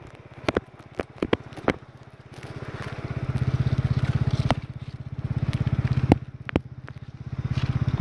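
Loquat tree leaves and twigs crackling, snapping and rustling as a gloved hand pulls at a fruit cluster to pick it. Sharp clicks come in irregular bunches. Underneath, a low pulsing hum swells and fades three times.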